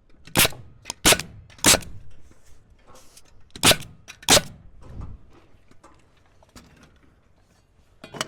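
Nails being driven into framing lumber: five sharp, loud strikes, three in quick succession, then a pause, then two more, with a few lighter knocks between.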